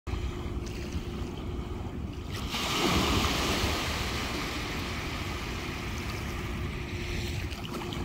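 Small sea waves breaking and washing up a sandy beach. A wave spills onto the sand about two and a half seconds in and its hiss holds for several seconds over a low rumble.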